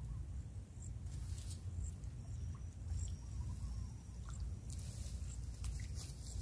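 Low steady wind rumble on the microphone, with faint short high chirps from insects and a few brief soft rustles.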